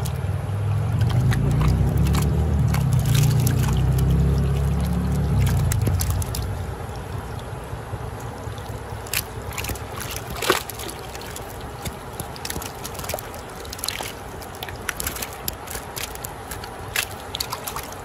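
Stream water rushing and sloshing around a keep bucket full of live fish. A heavy low rumble is loudest for the first six seconds, then gives way to scattered sharp splashes and slaps as the fish flap in the water.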